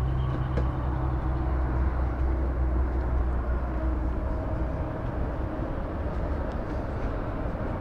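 An engine running with a steady low drone, easing off a little after about five seconds.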